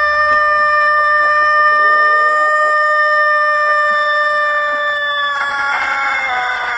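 A rooster crowing, holding one very long, steady note. About five seconds in, the note breaks up and wavers downward as the crow trails off.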